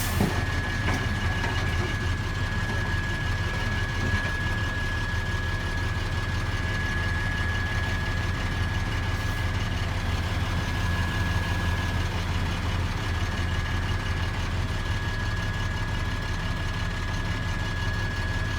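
Heavy diesel truck engine idling steadily with a low rumble, and a thin steady high whine over it.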